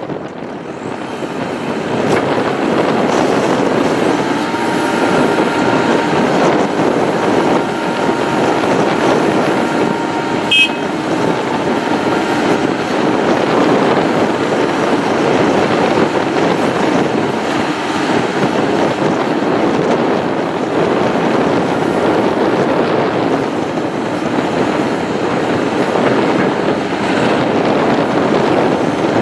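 A JCB 3CX backhoe loader's diesel engine running steadily, with a faint whine over the engine noise.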